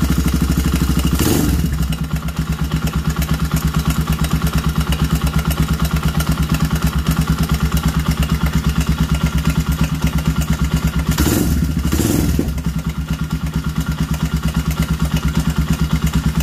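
CB250 motorcycle engine running cold just after start-up, with an even rapid pulse and a dragging, ugly-sounding noise that goes away once the engine warms up; the mechanic traces the noise to the cylinder head. The sound swells briefly about a second in and twice near eleven to twelve seconds in.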